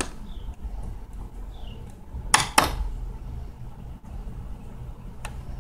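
Claw hammer knocking against a door frame as the door molding is pried off: two sharp knocks about two and a half seconds in, a quarter second apart, and a lighter tick near the end.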